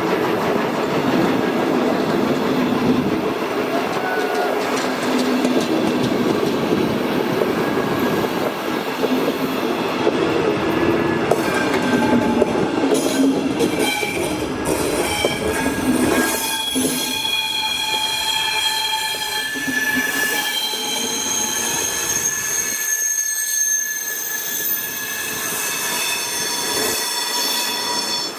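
Train hauled by steam locomotive 50 3501 rolling along, its wheels clattering over the rails. From about halfway the wheels squeal in several steady high tones.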